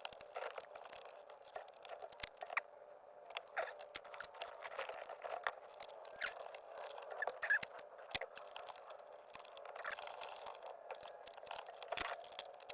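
Scattered light clicks and scrapes of small plastic parts being handled and fitted, irregular and close by.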